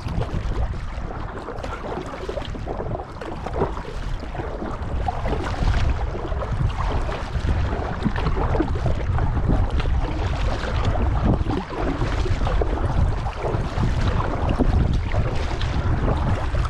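Water splashing and trickling from kayak paddle strokes, with wind buffeting the microphone in a steady low rumble.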